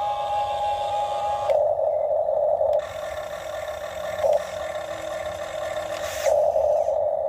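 Small electric motors of a Huina RC excavator running as it works, the sound shifting in loudness every second or so as different motions start and stop.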